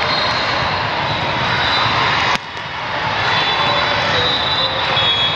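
Loud, steady din of a crowded indoor volleyball tournament hall, with many courts, players and spectators blending into one continuous noise. The level drops suddenly for a moment about halfway through, then recovers.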